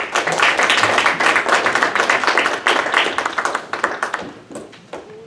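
A small audience applauding, many hands clapping at once, the clapping thinning out and dying away near the end.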